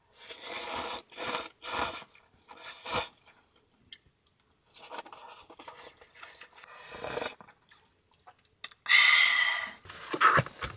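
Ramen noodles being slurped from a pot, in a series of noisy slurps of varying length. Near the end comes a louder noisy sound about a second long.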